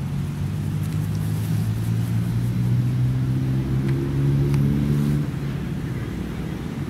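A vehicle engine running steadily. It grows louder and rises slightly in pitch, then drops off suddenly about five seconds in.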